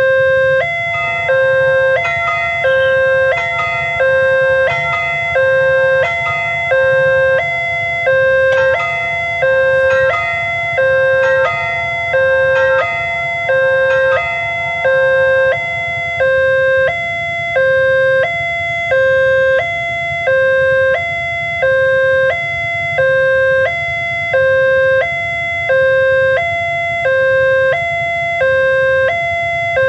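Railway level-crossing alarm sounding from the loudspeaker on the crossing post: an electronic signal alternating steadily between a lower and a higher tone, each held about a second, warning that a train is approaching. For about the first half a further steady tone sounds alongside it, over a constant low rumble.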